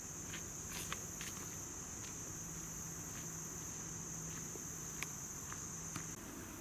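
Steady, high-pitched trilling of an insect chorus, with a few faint taps and a low hum underneath.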